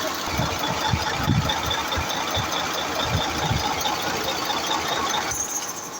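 Mercedes-Benz Actros V6 diesel truck engine running, a steady mechanical din with irregular low thumps, dropping away near the end.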